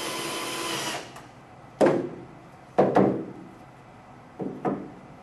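Cordless drill driving a screw into the wooden frame, its motor whirring steadily and stopping about a second in. Then two loud knocks and two softer ones follow as the drill is set down and the wooden pieces are handled.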